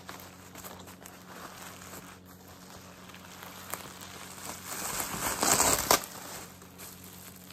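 Plastic bubble wrap crinkling as it is handled and lifted, loudest about five to six seconds in.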